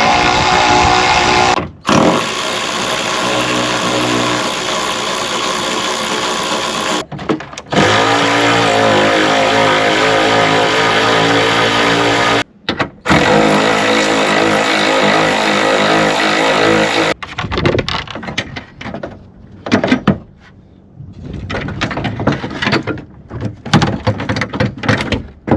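A power tool's motor running in long steady runs with short stops, as bolts on the windshield wiper linkage are taken out. About 17 seconds in it cuts off, and irregular clicks and knocks of hand-tool work follow.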